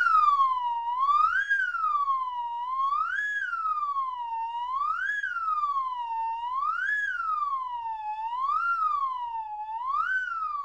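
Wailing siren tone, its pitch sweeping quickly up and then slowly down, about once every two seconds without a break.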